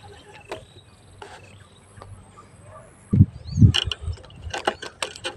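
Quiet lakeside background with scattered faint ticks, then about three seconds in loud low knocks and rustling from the phone being handled and moved, followed by a run of quick sharp clicks.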